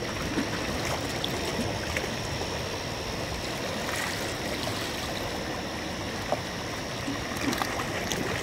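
Steady rush of flowing, foamy river water, with a thin steady high-pitched tone above it and a few faint ticks.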